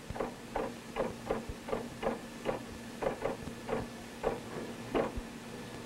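Keys clacking as someone types on a terminal keyboard, uneven strokes two to three a second that thin out near the end, over a steady electrical hum.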